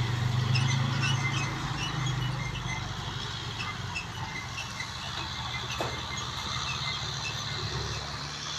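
A bulldozer's diesel engine running with a steady low drone that is a little louder over the first two seconds, and faint short high squeaks above it.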